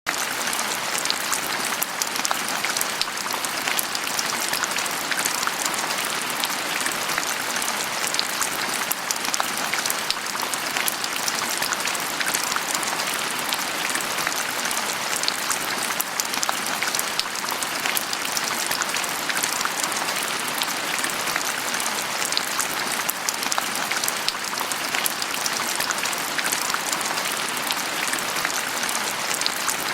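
Steady rain falling on a surface, a dense patter of many small drops without a break.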